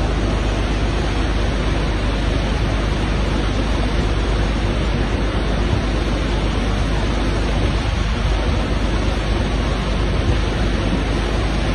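Steady, loud rushing of a swollen river in flood, an even roar with no breaks.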